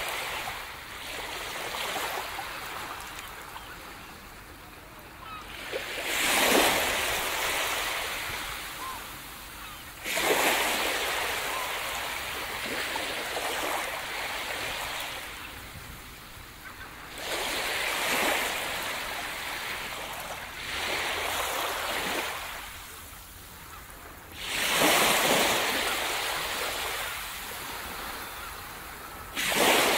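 Small waves washing onto a sandy beach: about six times a wave breaks with a sudden rush of surf that fades away over a few seconds, over a steady wash of water.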